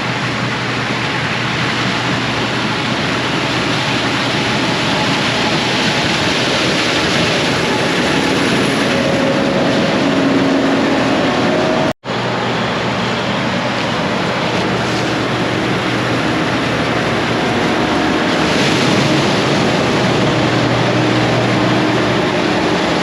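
Heavy farm machinery running steadily during corn harvest: an even engine-and-machine roar with a low hum. It cuts out for an instant about halfway through, then carries on unchanged.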